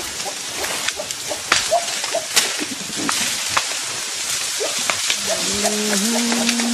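Dense crackling with many sharp snaps, like leaves and stems being broken and handled in thick forest vegetation. A low, level hum-like call starts about five seconds in and steps up once in pitch.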